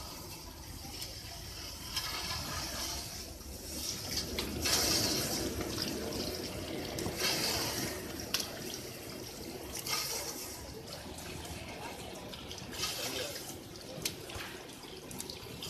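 Water gushing and splashing from an FGB-180 automatic fish filleting machine's outlet, carrying fish bones and offcuts into a plastic tub. The gush swells every few seconds, with a few sharp knocks.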